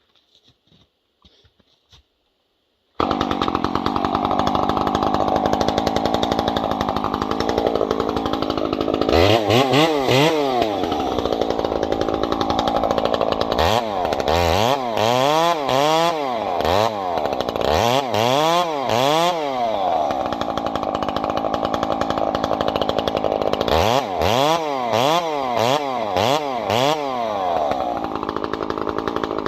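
Husqvarna 350 two-stroke chainsaw with a 24-inch bar running hard while cutting into a balsam fir tree. It comes in abruptly about three seconds in, and in several stretches its engine pitch repeatedly dips and rises again.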